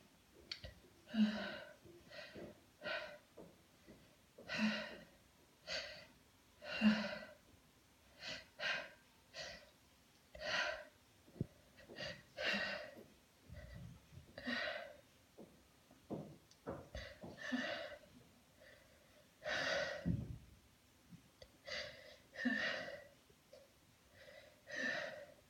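A woman's short, breathy gasps repeating about once a second: the hitching breaths of a sneezing fit.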